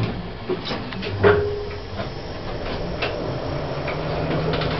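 KONE lift with an EcoDisc machine in operation: scattered clicks and knocks from the car and doors, a short tone about a second in, over a low hum that grows steadier near the end.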